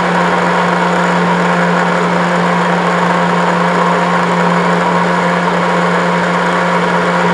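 Electric mixer-grinder running steadily with a constant motor hum, blending banana and milk together in its steel jar.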